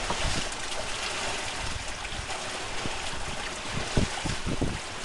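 Steady rush of water along the hull of a sailing yacht under way, with irregular low thumps, the sharpest about four seconds in.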